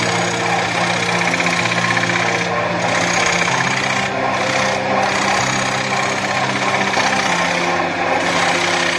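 Wood lathe spinning a wooden disc while a hand-held turning tool cuts into it, a dense rough cutting noise that briefly eases a few times. Background music with low notes changing every second or two plays under it.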